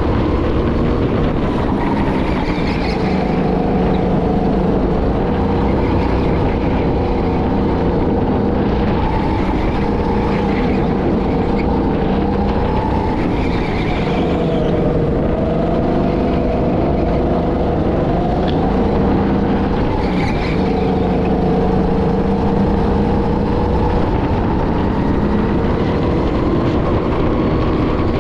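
Go-kart engine heard onboard while lapping, its pitch climbing and dropping again and again as it accelerates and backs off, over a steady low rumble.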